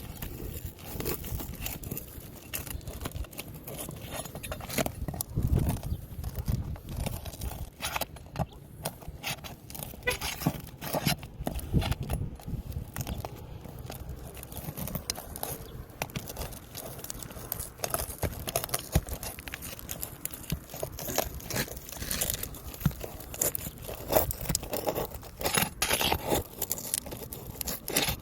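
Laminated roof shingle being pried and broken loose from the shingle beneath it: irregular scraping, crackling and tearing with sharp clicks.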